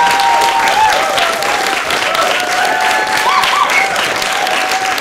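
Theatre audience applauding steadily, with a few voices calling out in long held shouts over the clapping.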